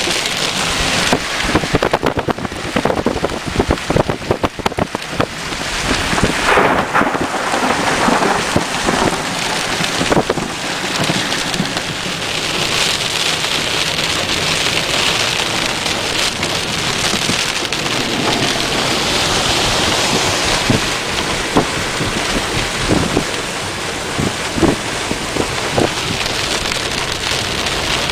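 Heavy rain from a thunderstorm pouring steadily, with a dense patter of close drops striking a surface in the first few seconds and scattered louder drops later on.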